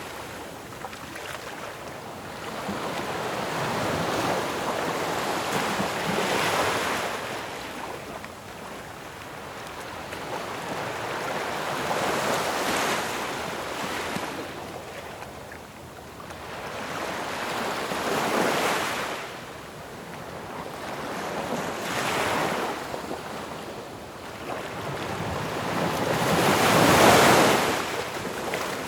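Ocean surf washing onto a shore, each wave swelling and then ebbing about every five or six seconds, with the loudest one near the end.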